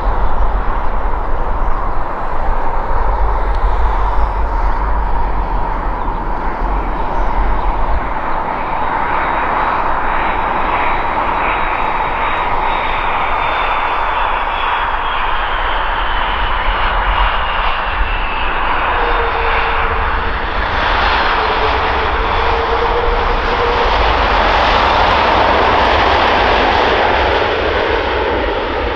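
Air France Airbus A330-200's twin GE CF6-80E1 turbofans running as the airliner lands: a steady jet noise with a whine that falls in pitch midway, growing louder near the end as it rolls out with spoilers deployed.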